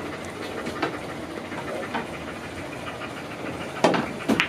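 A pool cue strikes the cue ball with a sharp click near the end, over a steady background hiss, followed at once by short vocal sounds.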